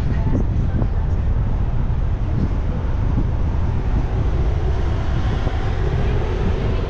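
Car driving along a town street: a steady low rumble of road and engine noise, with some wind noise on the microphone.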